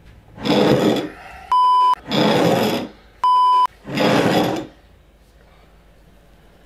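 Two half-second censor-style bleep tones, steady and high-pitched, each set between loud rushing bursts of noise (three bursts in all). After about five seconds only a low steady background remains.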